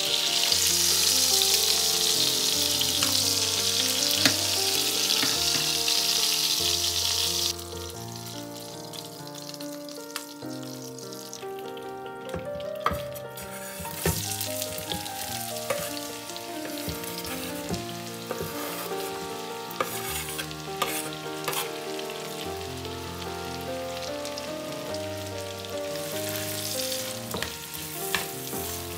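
Butter sizzling loudly in a frying pan under browned chicken thighs; about a quarter of the way in the sizzle drops suddenly to a quieter fry. Chopped onion is then tipped into the leftover fat about halfway through and stirred with a plastic slotted spatula, with occasional taps and scrapes over the sizzle.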